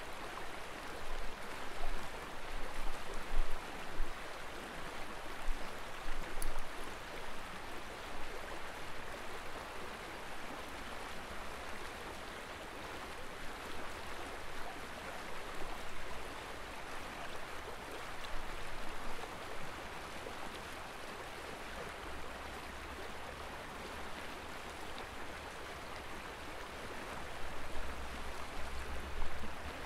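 River water flowing over rocky shallows, a steady rushing sound with uneven low rumbles near the start and near the end.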